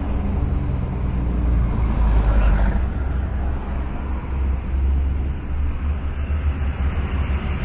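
Car on the road: a steady low engine and road rumble, briefly louder about two seconds in.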